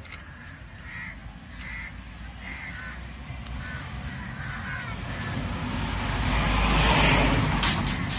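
A bird calling over and over, short calls coming roughly every three-quarters of a second. A rush of noise swells under them, loudest about seven seconds in, then fades.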